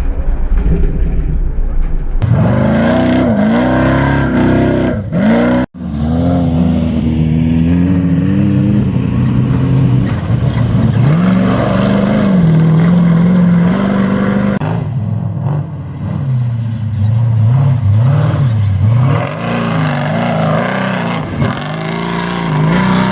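Off-road race vehicle engines revving hard, their pitch climbing and dropping again and again with throttle and gear changes. The sound breaks off abruptly about two seconds in and again near six seconds, as one clip gives way to the next.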